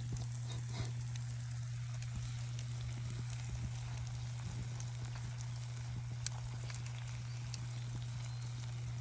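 Food sizzling in a pan of bacon fat over a campfire: a steady sizzle with scattered small crackles and pops, one sharper pop about six seconds in.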